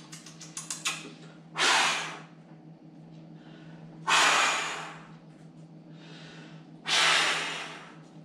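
A man's loud, breathy blows of air in a vocal warm-up: three long puffs about two and a half seconds apart, each fading out, with fainter breaths in between. Quick mouth clicks from exaggerated chewing come in the first second.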